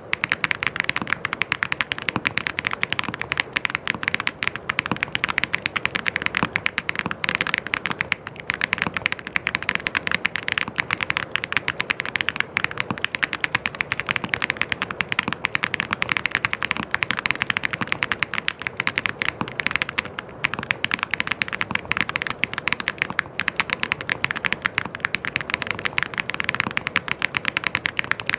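Fast, continuous typing on a mechanical keyboard: a dense run of key clicks and clacks with no pauses of note.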